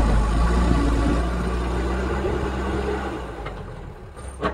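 Tata backhoe loader's diesel engine running as the machine drives off, its sound fading over the last second or so. A single sharp knock near the end.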